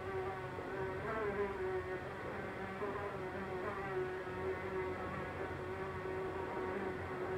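Housefly buzzing as it flies about a room, a continuous drone whose pitch wavers slightly up and down as it moves, over room tone.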